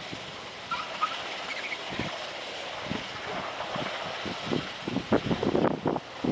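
A rail-mounted ballast-cleaning machine working along the track, running steadily with irregular knocks and clatter that come thicker and louder in the last second or so.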